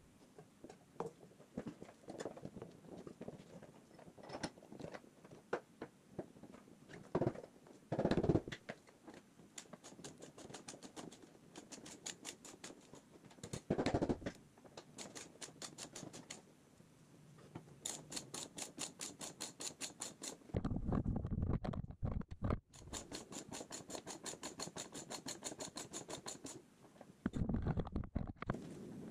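Hand tools at work on a motorcycle wheel: a socket ratchet clicks in quick, even runs, with knocks, clinks and scrapes of tools and parts in between.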